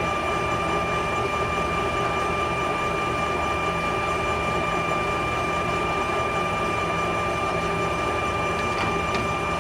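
Clausing Colchester 17" x 80" engine lathe running with the power cross feed engaged: a steady machine hum with a constant high whine.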